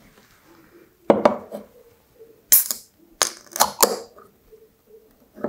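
Drink can's ring-pull tab being lifted and snapped open: a few sharp metallic clicks and snaps from about a second in, the loudest between two and four seconds.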